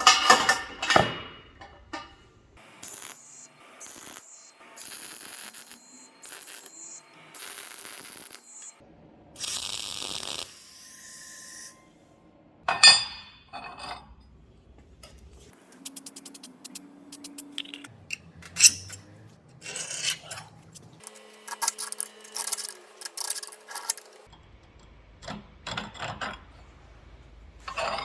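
A string of short metal clinks, knocks and scrapes with brief hissing bursts, from steel parts being handled and worked, changing abruptly from one sound to the next.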